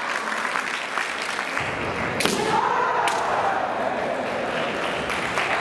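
Kendo bout: fencers' shouted kiai with bamboo shinai strikes, two sharp cracks a little after two seconds and about three seconds in.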